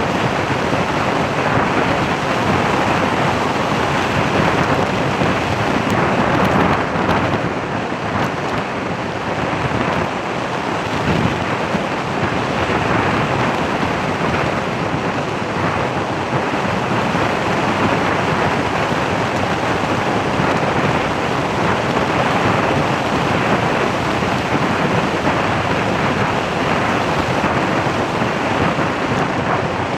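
Steady, loud wind noise buffeting the microphone, a constant rushing with no distinct events.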